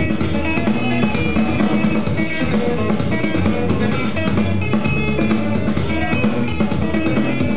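Breakdance battle music with a drum-kit beat and guitar, playing loudly and without a break.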